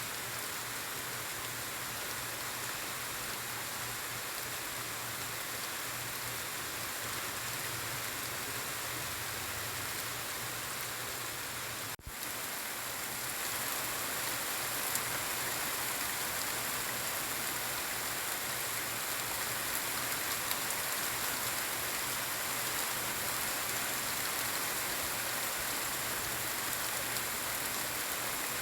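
Steady rain falling, a continuous even hiss. It breaks off for a moment about twelve seconds in and resumes a little louder.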